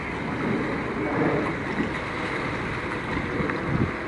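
Steady rushing noise of wind and open water, with no distinct strokes or other events.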